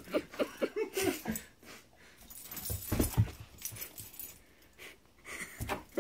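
Dog whimpering in a quick run of short, high whines for the first second or so, then quieter, with a few dull thumps about three seconds in and again near the end.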